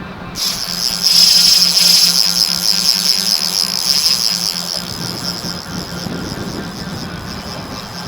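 Spinning reel's drag buzzing as a hooked cownose stingray pulls line off an ultralight rod, starting about half a second in, loudest for a second or so and then easing.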